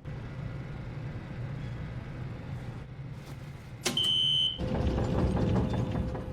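Steady low rumble, with a sharp click about four seconds in followed by a short, high, steady beep lasting about half a second; after the beep the rumble gets louder.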